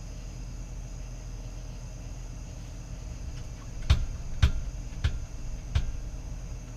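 Four short, sharp knocks, roughly half a second to a second apart, starting about four seconds in. They sound like handling or tapping on the parts of a small bike. Crickets chirp steadily in the background.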